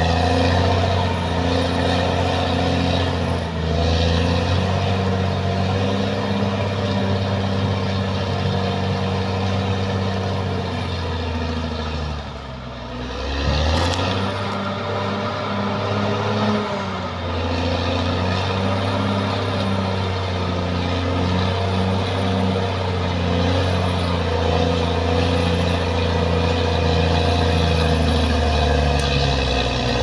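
Caterpillar D6R XL crawler bulldozer's diesel engine running steadily as it pushes earth with its blade. Its pitch dips briefly a little before halfway, then climbs back.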